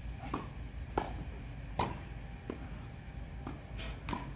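Tennis rally on a grass court: a series of sharp pops as the ball is struck by the rackets and bounces, unevenly spaced about half a second to a second apart, over a low steady rumble.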